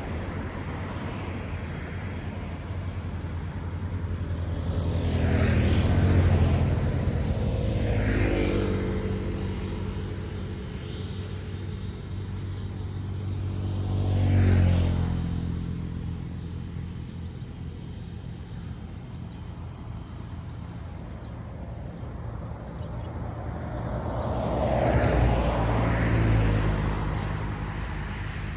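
Motor vehicles passing on a nearby road about four times, each engine swelling up and dropping in pitch as it goes by, over a steady low engine hum.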